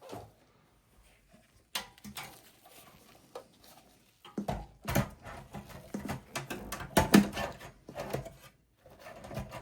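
Knocks, clicks and rattles of a replacement power supply unit being handled and fitted into a Dell OptiPlex small-form-factor computer case. A few scattered clicks at first, then a busy run of knocks and clicks from about halfway.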